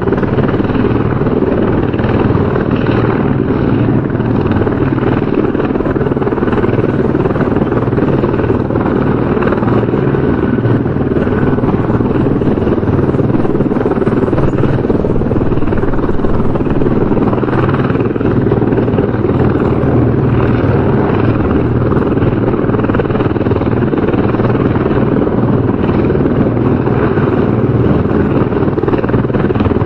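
Helicopter rotor noise, a steady loud chopping drone of the blades and engine that holds without change.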